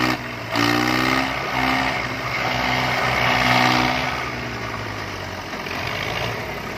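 Two diesel tractor engines, a Swaraj 855 and a second tractor chained ahead of it, running hard under load as they try to drag a loaded trolley out of loose sand. The revs climb about half a second in, hold high, then ease off after about four seconds.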